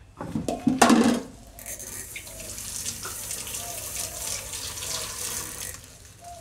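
Kitchen tap running water into a steel sink for about four seconds, after a loud clatter about a second in.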